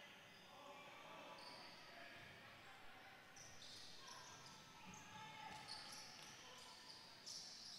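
Faint sound of a basketball game: a basketball bouncing on the court, with short high squeaks and distant voices.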